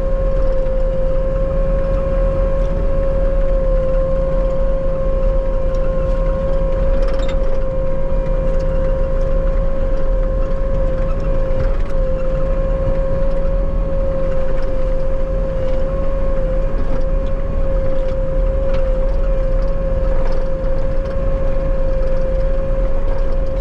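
Bobcat T770 skid steer (compact track loader) running steadily under way, a low diesel rumble with a steady high whine over it.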